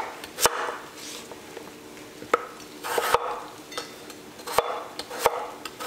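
Chef's knife cutting peeled raw potatoes into chunks on a wooden cutting board: the blade slices through with a soft hiss and hits the board in several sharp knocks about a second apart.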